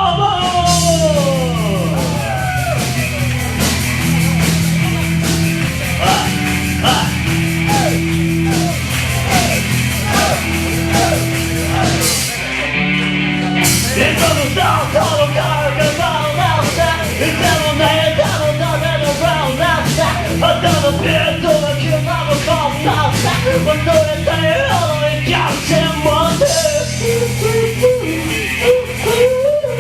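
Band playing an upbeat rock song with a steady drum beat and a bass line. A busier lead melody comes in about halfway through.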